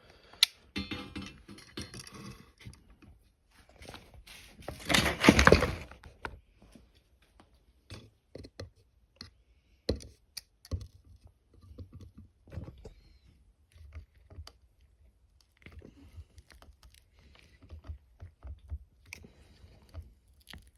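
Scattered clicks and knocks from a Victorinox SwissTool multitool being handled and its screwdriver set to a screw, with a louder rasping noise lasting about a second and a half roughly five seconds in.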